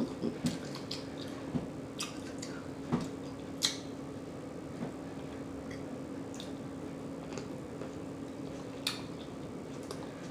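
Eating sounds: a handful of short, wet mouth smacks spread across several seconds while someone chews, over a steady low hum.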